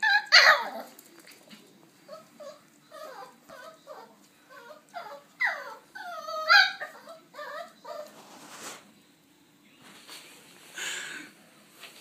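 Young Bichon/Westie crossbreed puppy whimpering and yipping in short, high, sliding cries: a loud cry right at the start, a run of whimpers through the middle, and another cry near the end.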